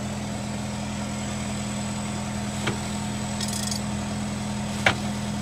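Semi truck's diesel engine idling steadily, with two light knocks, one about halfway and a sharper one near the end.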